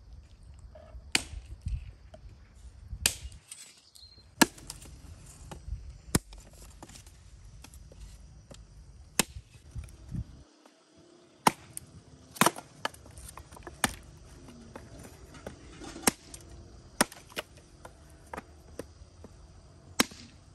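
A knife chopping on a cutting board in single, irregularly spaced sharp strikes, roughly one every second or two.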